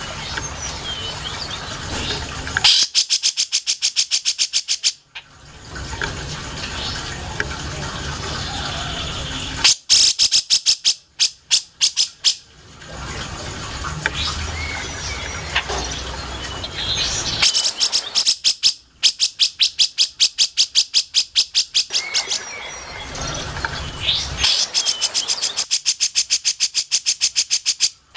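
Cucak jenggot (grey-cheeked bulbul) song: four runs of very fast, evenly repeated high notes, each lasting two to four seconds, with faint chirps and a steady hiss between them.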